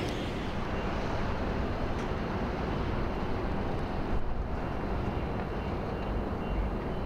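Pilot boat's engine rumbling steadily, with a faint hiss above.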